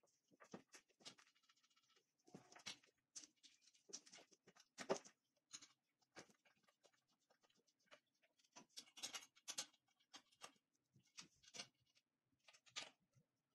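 Faint, irregular clicks and scrapes of a small wrench and screws being tightened on a metal equipment trolley's frame and panel.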